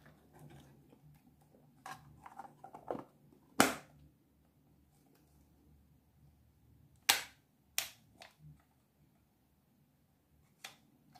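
Plastic Holga 120 camera being handled and its back cover fitted and clipped shut: scattered light clicks, then sharp plastic-and-metal snaps. The loudest snap comes about three and a half seconds in, two more follow around seven and eight seconds, and a last one comes near the end.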